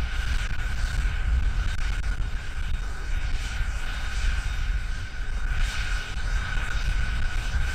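Cessna Citation 501's Pratt & Whitney Canada JT15D turbofans running at idle with a steady high whine. Heavy wind rumble on the microphone lies under it.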